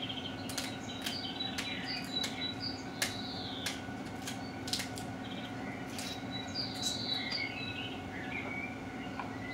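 Birds chirping and singing over a steady low hum, with a dozen or so sharp clicks and cracks as crab leg shells are snipped open with scissors.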